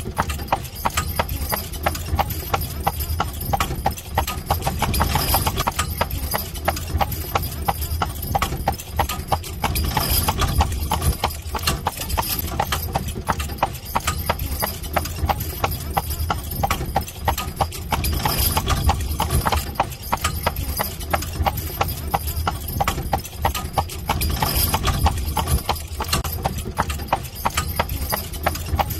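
Carriage horse's hooves clip-clopping at a steady trotting rhythm on a paved road, over a steady low rumble.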